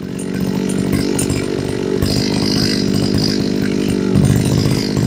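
Kioritz 26cc two-stroke brush cutter engine (34 mm bore, separate oil injection) running steadily, getting louder about half a second in as it picks up speed. Its sound is strong enough that it is likened to a larger 38 mm-bore engine.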